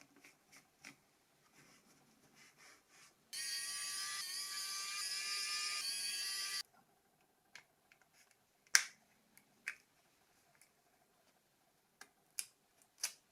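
A small electric motor buzzing steadily at a high pitch for about three seconds, starting and stopping abruptly, amid scattered small clicks and taps of plastic phone parts being handled, the sharpest click near the middle.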